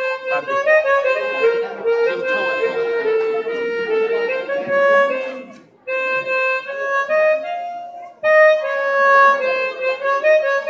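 Harmonica playing a melody of held notes into a microphone, in phrases with short breaks about six and eight seconds in.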